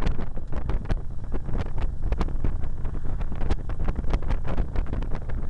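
Wind rushing and buffeting over the microphone of a sunglass camera on a moving motorcycle, a steady low rumble broken by frequent irregular crackles.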